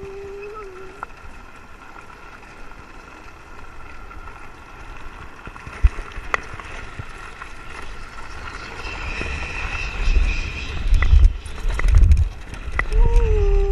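Blokart land yacht rolling over sand: wind rushes and buffets over the frame-mounted camera's microphone, growing much stronger in the second half, with a couple of sharp knocks from the frame. A steady whine sounds briefly at the start and again near the end.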